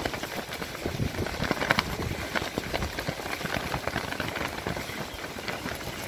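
Strong gusty wind buffeting the microphone in irregular rumbles and crackles, over choppy lake water splashing against the shore.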